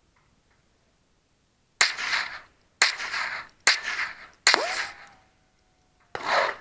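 Five rifle shots fired at an uneven pace, the last after a longer pause, each trailing off in a short echo. A faint thin tone lingers after the fourth shot, slowly falling in pitch.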